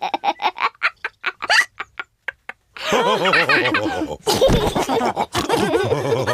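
Cartoon pig characters laughing with snorting oinks, after a quick run of short, sharp sounds in the first two seconds and a brief pause.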